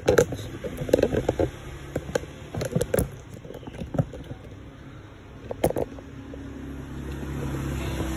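Short knocks, clicks and rubbing from handling the phone and the gear, then a low steady hum that grows louder over the last few seconds.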